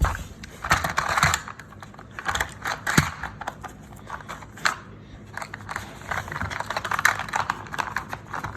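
A dog working at a treat puzzle toy with its nose and paws: irregular clicks, knocks and rattles of the puzzle's pieces, with one sharper knock about three seconds in and busier clicking again near the end.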